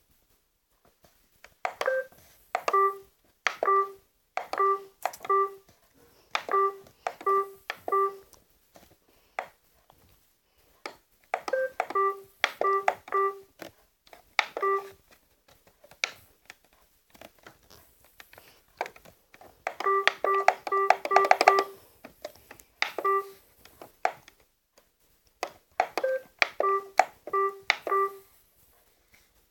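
iRobot Roomba 564 robot vacuum giving out four runs of short electronic beeps, each run opening on a higher note, with sharp clicks of its buttons being pressed in between. The beeping comes from a Roomba that will not switch on.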